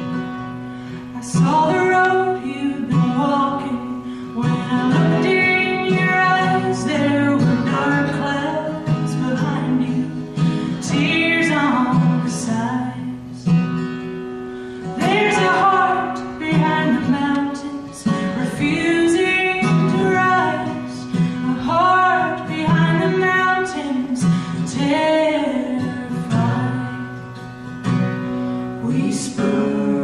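A woman singing a folk song to acoustic guitar accompaniment.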